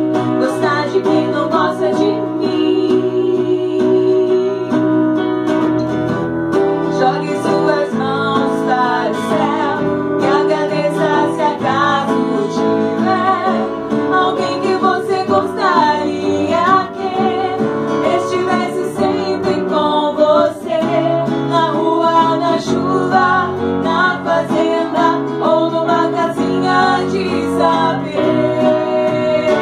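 Women's voices singing a song with guitar accompaniment.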